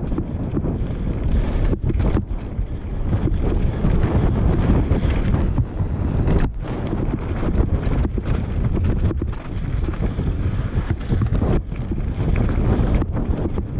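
Wind buffeting the camera's microphone during a fast mountain-bike descent, over the rumble of the tyres on a gravel trail. It is a dense, steady roar that dips briefly now and then.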